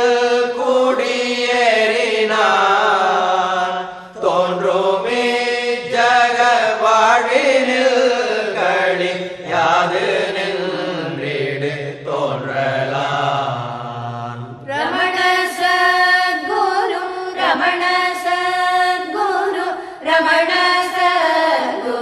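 Devotional chanting sung in Tamil, a voice moving slowly through long held notes. It breaks off briefly about fifteen seconds in and resumes as a brighter, fuller passage.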